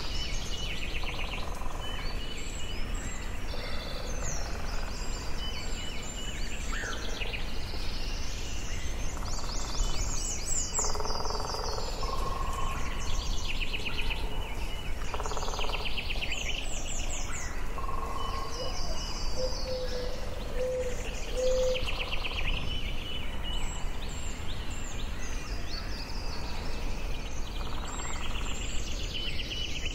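Forest ambience with several birds singing: short, rapid trilled phrases up high recur every few seconds, mixed with lower single notes, over a steady low rumble.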